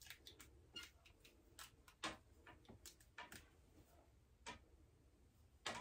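Near silence with faint, irregular clicks and taps from a curling iron being handled while hair is wrapped around it, a slightly louder click near the end.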